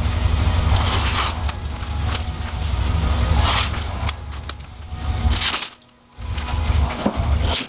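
A freshly hand-filed knife blade slicing through a sheet of paper, about four short rustling cuts roughly two seconds apart, a common test of the edge's sharpness. Under it runs a steady low rumble.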